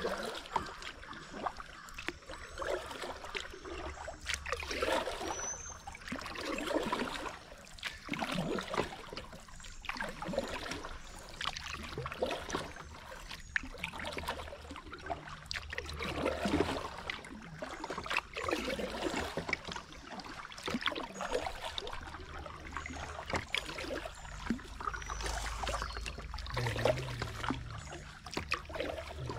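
Kayak paddle strokes in slow river water, a splashing swish about every one and a half to two seconds, with water trickling along the hull of the moving kayak.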